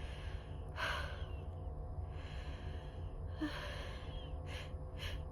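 A woman's pre-sneeze breathing: several breathy inhalations and sighs, quickening near the end into short catching gasps as the sneeze builds. A steady low hum runs underneath.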